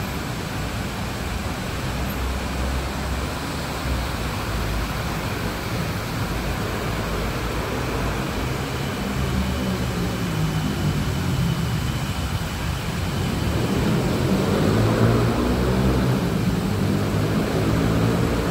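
Steady city background noise: a low traffic rumble under a hiss, swelling louder for the last few seconds.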